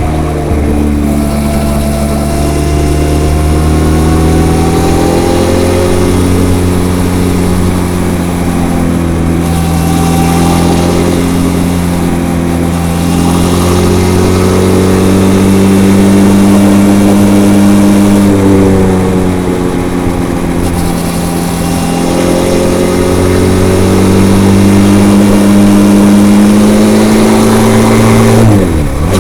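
Benelli TRK 502's 500 cc parallel-twin engine on its stock, unmodified exhaust while riding. The engine note rises and falls slowly with the throttle, with a sudden brief dip and pickup near the end.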